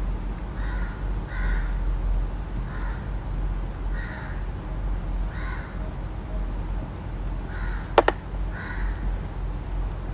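Crows cawing now and then, a short call every second or so, over a steady low hum. A sharp double click sounds about eight seconds in.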